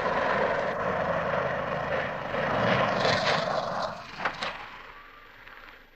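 A car engine running loudly and then dying away over the last couple of seconds, with a couple of sharp knocks about four seconds in.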